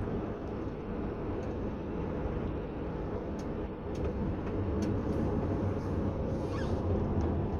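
A car driving at road speed: steady tyre and engine rumble, a little louder in the second half, with a few faint clicks.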